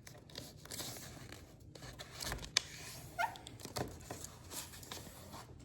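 Faint rustling and crisp clicks of a sheet of paper being folded and creased by hand, with a brief faint squeak about three seconds in.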